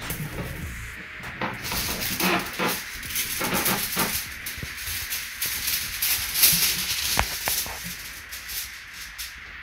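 Aluminium foil crinkling and rustling as it is unrolled and handled, with irregular sharp crackles.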